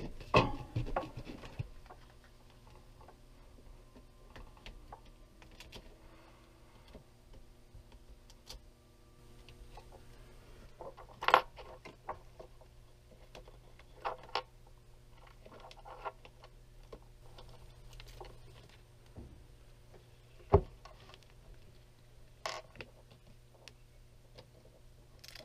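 Sparse taps, clicks and rustles of hands pressing and fitting peel-and-stick backsplash tile sheets, over a faint steady hum. A quick cluster of taps comes at the start, then a few sharper single clicks spread through.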